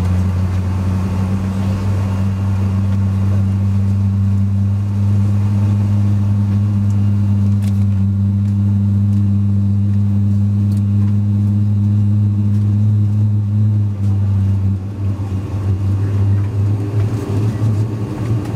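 Steady deep drone inside an Airbus A380's cabin while it stands at the gate. About three-quarters of the way through the drone turns uneven, and a somewhat higher hum joins near the end.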